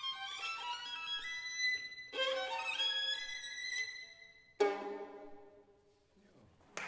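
Solo violin playing a quick run of notes, then a sharp, strong final low note about two-thirds of the way in that rings out and fades in the church's reverberation. Applause breaks in right at the end.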